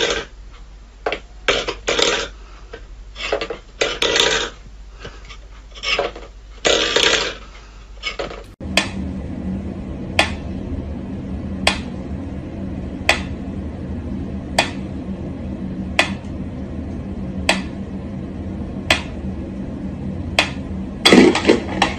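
A stainless steel bowl clatters and scrapes on a wooden floor in irregular knocks and bursts. Then a mechanical pendulum metronome ticks slowly and evenly, about once every second and a half, and a brief louder noise comes near the end.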